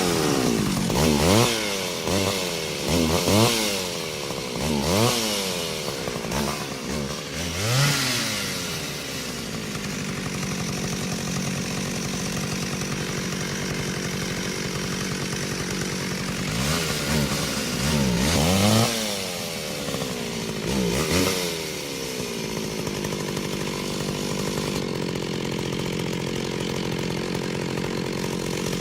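Chainsaw engine blipped up and down in a series of quick revs, then running steadily at a lower speed. About halfway through it revs in several more quick bursts, then settles back to steady running.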